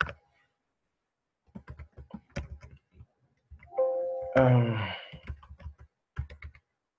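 Computer keyboard typing in short runs of keystrokes, with a brief pitched sound, the loudest thing here, about four seconds in.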